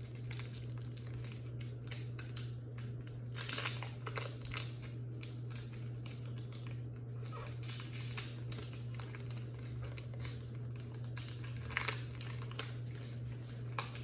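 Crinkling of a Pokémon trading-card booster pack's foil wrapper as it is torn open and handled, with cards rustling. There are irregular small crackles throughout and louder bursts of crinkling about three and a half seconds in and again near twelve seconds.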